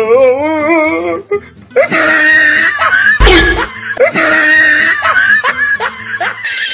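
Music and laughter sound effects. A wavering, warbling voice-like tone in the first second, and a deep boom a little over three seconds in.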